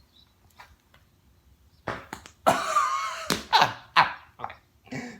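Sweaty bare skin unsticking from a rubber horse stall mat, giving a run of loud, rough, fart-like rips with a wavering pitch, starting about two seconds in.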